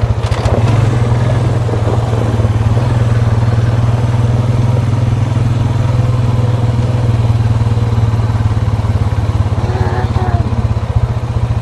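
Quad bike (ATV) engine running at a steady speed, a continuous low pulsing drone with no change in pitch.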